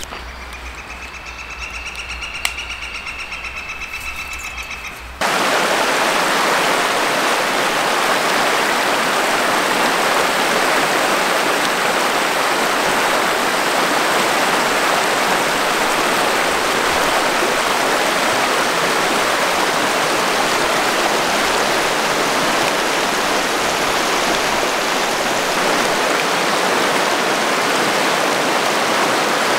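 A mountain river rushing steadily over rocky riffles. It starts abruptly about five seconds in, after a quieter steady high-pitched trill over a low hum.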